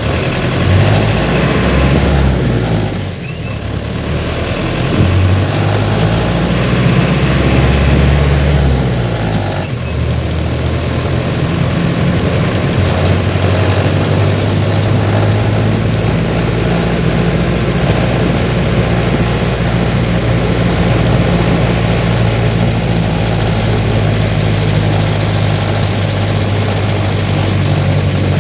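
Mercedes-Benz LO 814 minibus's diesel engine heard from the driver's seat as the bus pulls away. It revs up, drops back about three seconds in, and revs up again. After a second drop near ten seconds in, it runs at a steady pitch.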